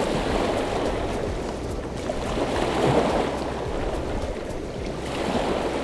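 Small lake waves lapping and washing over a shore of rounded cobbles, a steady wash that swells a little in the middle and again near the end.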